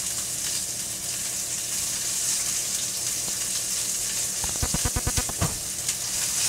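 Large beef steak searing in a hot pan, a steady sizzle. Just after the middle comes a quick run of low knocks, about eight in a second.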